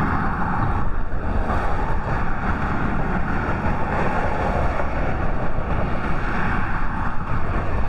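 Steady, loud rushing noise of wind buffeting the microphone, mixed with the fast current of a flooded river.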